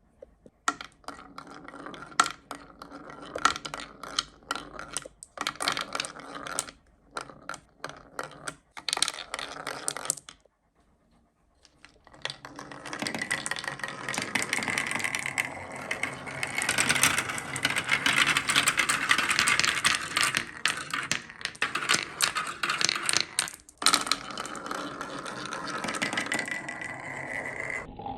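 Marbles clicking and clattering down a handmade marble run track: separate sharp clacks for about ten seconds, a brief pause, then a dense, continuous rattle of many marbles rolling and knocking together.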